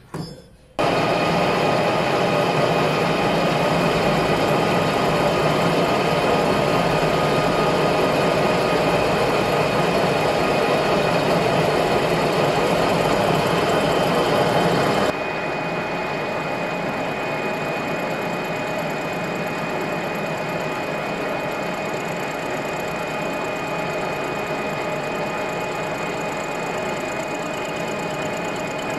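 Metal lathe running, its spinning hob cutting the teeth of a brass worm gear that turns along with it. A steady machine sound starts about a second in and becomes quieter, still steady, about halfway through.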